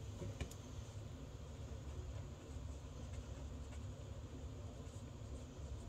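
Faint scratching of a pen writing on a paper card, over a steady low hum of room tone.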